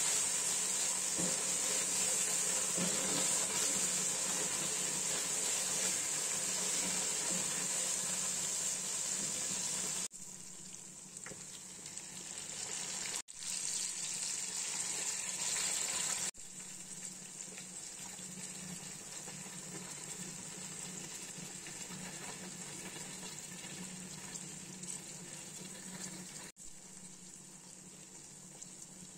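Onions, tomatoes and green chillies sizzling in hot oil in a pot while stirred with a wooden spatula: a steady frying hiss that drops abruptly in level about ten seconds in and breaks off briefly a few times.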